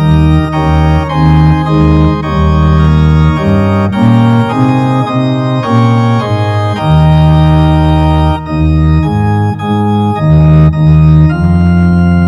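Organ music: full held chords over a bass line, the chords changing about once a second.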